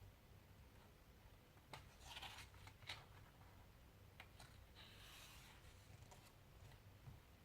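Faint handling sounds of a book-and-CD package: a few light clicks and short rustles, about two seconds in and again around five seconds, over a low steady hum.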